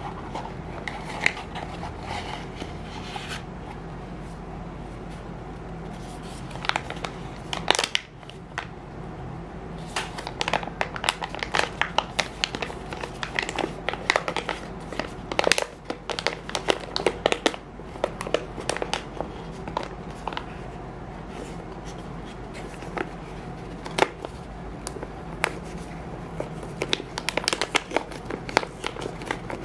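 Crinkling and rustling of a sealed plastic blind-box bag handled in the hands, a dense run of sharp, irregular crackles. At the start, the cardboard carton being opened gives a few scattered rustles and clicks.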